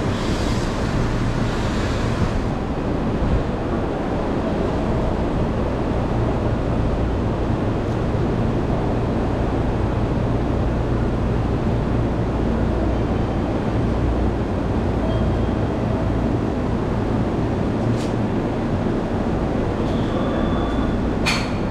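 Steady low hum and rumble of Hanshin Railway trains standing at a station platform, with a general wash of noise from passengers walking by. Two sharp clicks sound near the end.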